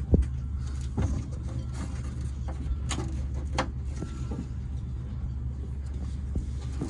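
A steady low rumble throughout, with a few short clicks and knocks, about four, from wire and fittings being handled while the cable is fed through a hole.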